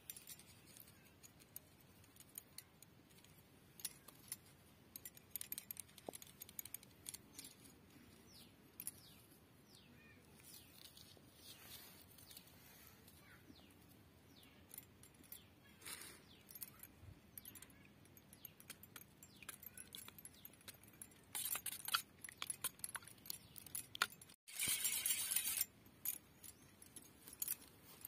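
Light clinking and jingling of bangles with soft taps against a steel bowl as raw eggs are mixed; the clinks grow busier and louder in the last quarter.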